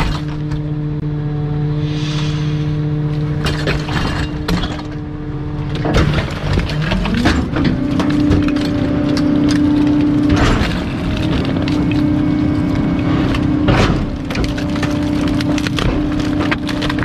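Rear-loader garbage truck's hydraulic packer blade crushing bulky household junk, with wood cracking and breaking under the blade over a steady hydraulic whine. The whine's pitch glides up about six or seven seconds in.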